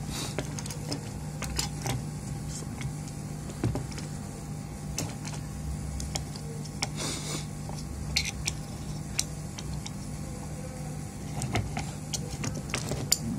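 Small scattered clicks and taps of hand tools working on a PS4 Pro power supply board, prying loose a blown capacitor, over a steady low hum. There is a short hiss about seven seconds in.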